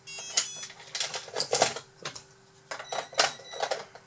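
Hard plastic clicking and rattling as a battery and its plug are pushed into an RC bulldozer model, with two short electronic beeps from the model's electronics as the power connects, one just after the start and one about three seconds in. The beeps mean the model's power switch was already on.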